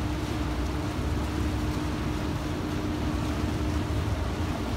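Steady low drone of a tug's marine diesel engines with a constant hum, mixed with wind rumbling on the microphone.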